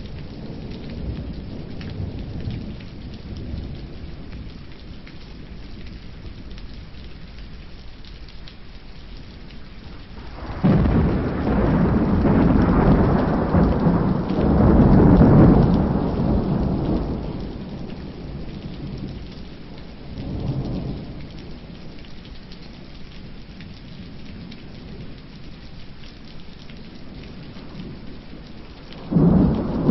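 Steady rain with a loud rumble of thunder that breaks in suddenly about a third of the way through, swells and fades away over several seconds; a smaller rumble follows, and another sudden one starts near the end.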